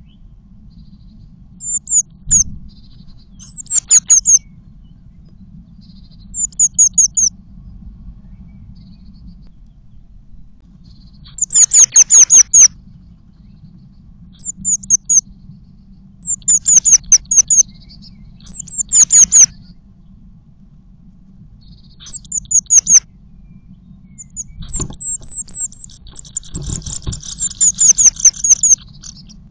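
Incubating female blue tit calling inside a nest box: short runs of thin, high, falling notes, repeated every couple of seconds. Near the end the calls come fast and almost without pause, with a few dull knocks of movement in the box, as she begs to be fed when the male arrives with food.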